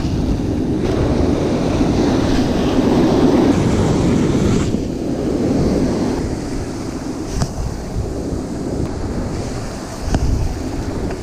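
Ocean surf breaking and washing on a beach, with wind buffeting the microphone; the rush swells in the first few seconds and eases later on.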